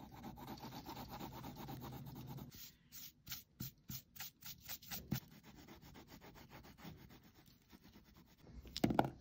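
Colored pencil shading on paper: a steady scratchy rub for the first couple of seconds, then short separate strokes about three a second, then fainter rubbing, with a louder scrape near the end.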